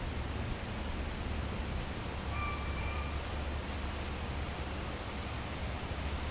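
Wind blowing through autumn trees with rustling leaves, and a steady low rumble of wind buffeting the microphone. A faint short whistled note sounds about two and a half seconds in.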